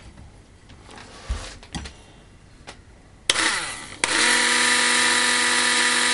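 Saturn 500 W hand blender's electric motor switched on about three seconds in and spinning up. A second later it jumps louder and runs steady with a whine. The blender is working again after its blown fuse was replaced. Before it come a few handling clicks and a knock.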